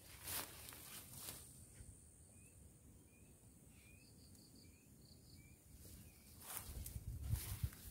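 Faint outdoor ambience: a small chirp that rises in pitch, repeated about every two-thirds of a second through the middle, over a steady high hiss. Brushing footsteps rustle through vegetation at the start and again near the end, with a low rumble near the end.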